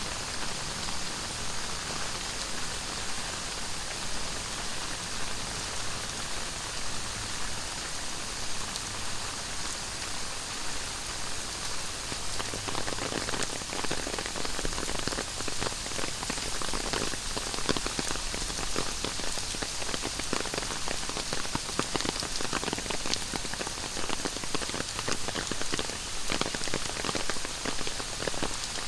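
Heavy tropical rain falling steadily, with many sharp drop impacts that grow denser from about halfway through.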